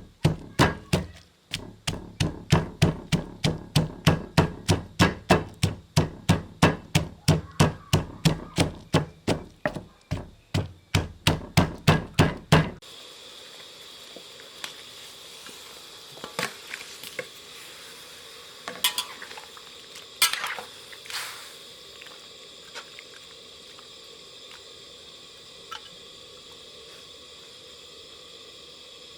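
Knife or cleaver chopping rapidly and evenly on a cutting board, about three to four strokes a second, with solid thuds. It stops about 13 seconds in, leaving a faint steady hiss and a few light clinks of kitchen utensils.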